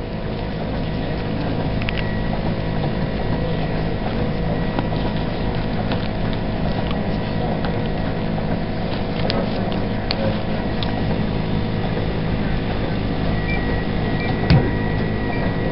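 Steady mechanical hum of a hemodialysis machine running, with a faint high tone and a few light clicks.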